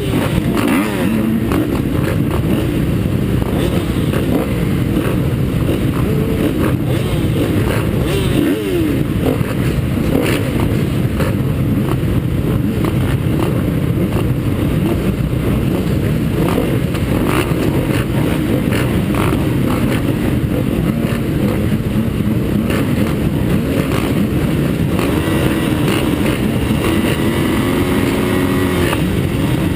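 Honda CRF250 single-cylinder four-stroke motocross bike engine running hard, its pitch rising and falling with the throttle, heard up close from on board.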